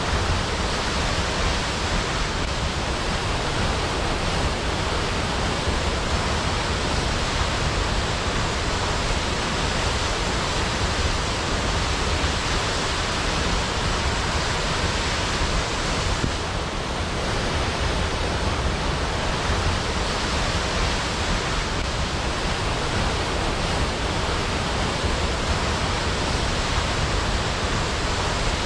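Waterfall: water falling with a steady, even rush, easing off slightly for a moment a little over halfway through.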